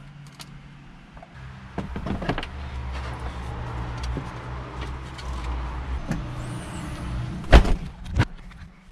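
Steady low mechanical hum, like a car engine running, with scattered light knocks over it. Near the end come two loud clunks, the first the louder.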